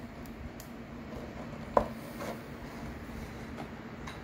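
A boxed toy monster truck in its cardboard-and-plastic blister pack handled on a wooden table: one sharp knock a little under two seconds in, then a couple of faint clicks.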